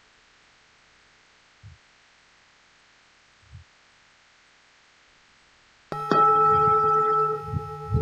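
Faint hiss with two soft low thumps, then about six seconds in a Buddhist temple bell is struck once and rings on as a steady chord of several tones. A couple of low knocks sound under the ringing near the end.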